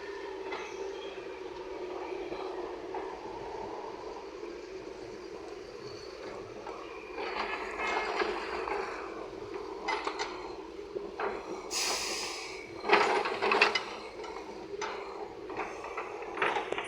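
Excavator running steadily, with irregular metal clanks and knocks from about seven seconds in, the loudest a cluster about thirteen seconds in.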